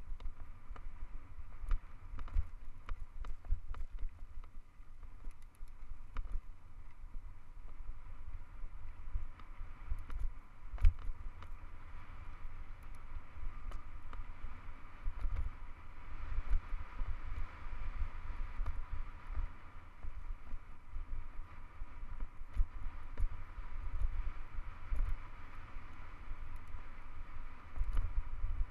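Wind buffeting the microphone while a hardtail mountain bike rolls fast down a gravel dirt road, its tyres hissing over the gravel, with occasional sharp clicks from the bike and stones.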